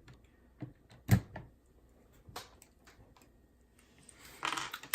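Keycaps being pulled off the switches of a Ducky One 2 Mini mechanical keyboard: a few sharp plastic clicks, the loudest about a second in, then a brief rustle near the end.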